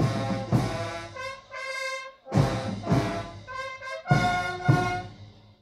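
Brass band playing sustained chords in a march-like rhythm, with heavy drum beats falling in pairs; the music dies away near the end.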